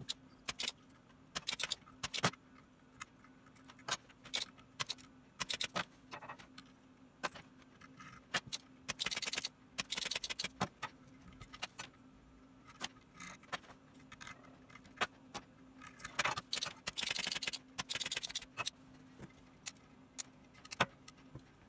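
Small metal tools handling wires and parts inside an opened wah pedal while soldering: irregular light clicks, taps and short rattles, over a faint steady hum.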